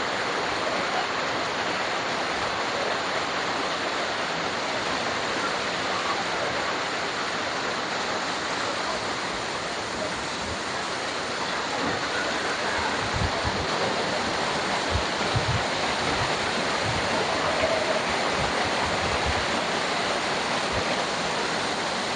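Waterfall rushing: a steady, even roar of falling water, with a few brief low thumps of wind buffeting the microphone in the middle stretch.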